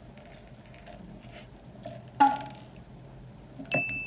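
Small plastic craft beads clicking faintly as they are handled and threaded by hand, with a sharp ting about two seconds in and a short, bright ringing ding near the end.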